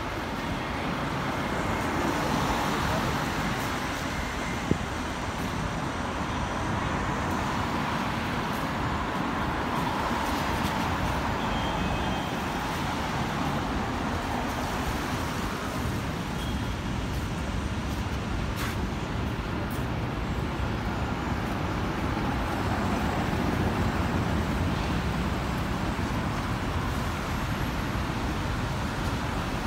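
Road traffic on a city street: a steady wash of passing cars, with a single sharp click about five seconds in.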